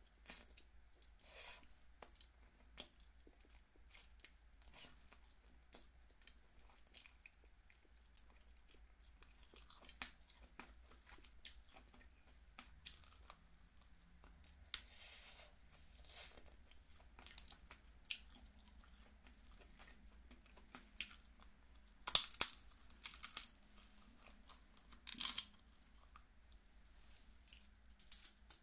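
Close-miked chewing of snow crab meat, mixed with small cracks and snaps of crab shell being broken apart by hand. A burst of louder cracks comes about three-quarters of the way through, and another a few seconds later.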